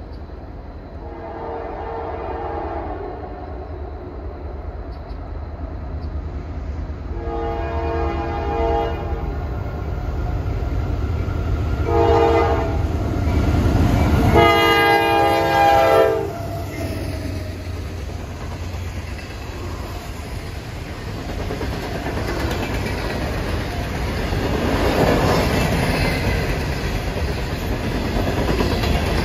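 Diesel freight locomotive's multi-note air horn sounding the grade-crossing signal, long, long, short, long, each blast louder as the train approaches. After the horn, the train's steady rolling rumble grows as it comes past.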